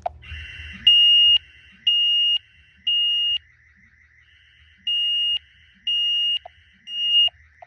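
House burglar-alarm sirens sounding a triggered panic alarm: loud high-pitched beeps about half a second long, once a second in groups of three with a short pause between groups, over a quieter continuous warbling tone from a second siren. A few light clicks come near the end.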